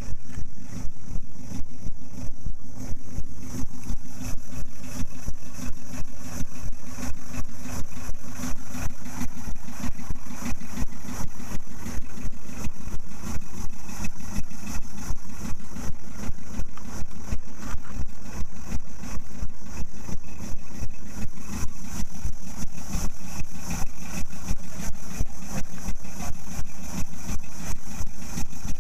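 A moored wooden fishing boat's inboard engine idling steadily, with an even beat of a few pulses a second.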